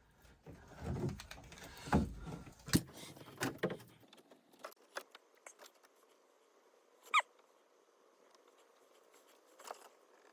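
Hand work on car wiring: irregular clicks, knocks and rustles of handling wires and tools, thinning out after about four seconds, then one short squeak about seven seconds in.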